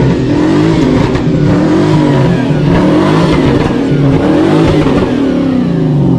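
Car engine revving hard, its pitch swinging up and down over and over, with tyres spinning and screeching on asphalt as the car does donuts.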